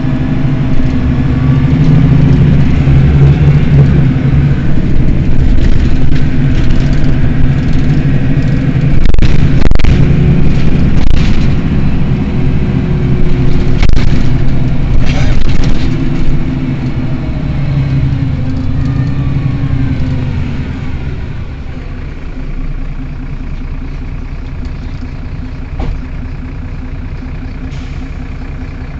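Mercedes-Benz Citaro city bus engine running with the bus standing still, loud with its pitch wavering up and down, then settling to a quieter, steady idle about twenty seconds in. A few short, sharp noises stand out around the middle.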